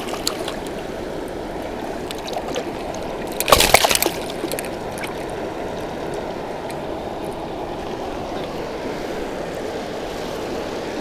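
Steady rush of water pouring over a river spillway. A brief, louder burst of noise comes about three and a half seconds in.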